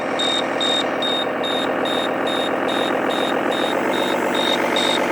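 RC truck sound module playing a simulated truck engine while the truck reverses, with a high back-up warning beep repeating about twice a second over it.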